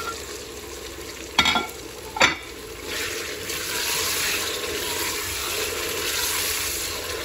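Raw chicken pieces sizzling in hot oil with sliced onions as they are stirred. There are two sharp knocks against the pan, one about a second and a half in and one a second later. The sizzle grows louder about three seconds in and then holds steady.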